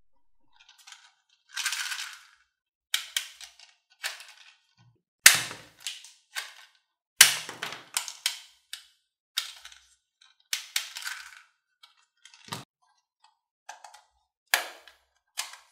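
Hard plastic toy pistols being handled on a table: an irregular string of sharp plastic clicks and clacks with a few short rattles, the loudest about five and seven seconds in.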